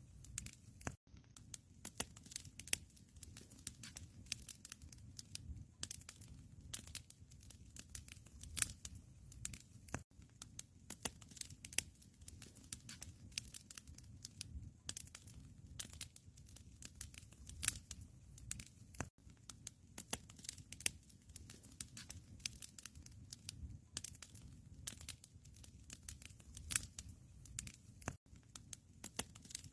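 Wood fire crackling in a fireplace: constant irregular pops and snaps over a low, steady rumble of the flames.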